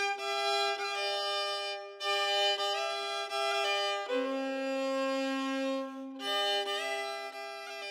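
Instrumental background music: a slow melody of long held notes, in phrases of about two seconds.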